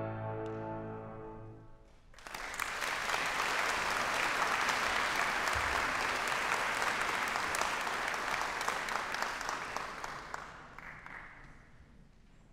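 The final chord of an ensemble of grand pianos rings and dies away over about two seconds, then an audience applauds, the clapping fading out near the end.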